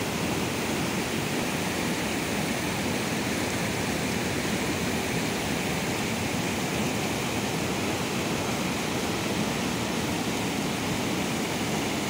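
Waterfall in spate: heavy, muddy water pouring over rock ledges and churning into the pool below, a steady rushing sound.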